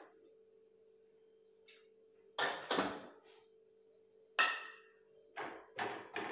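Steel kitchen utensils knocking and clinking during roti making: a run of sharp knocks, the loudest about four seconds in with a short metallic ring, and a quick cluster of knocks near the end, over a faint steady hum.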